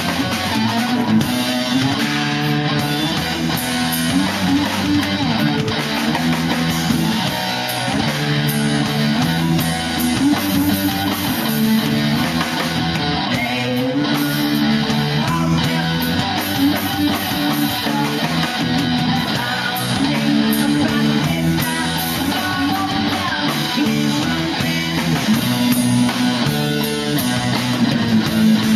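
Loud rock music led by electric guitar, playing continuously.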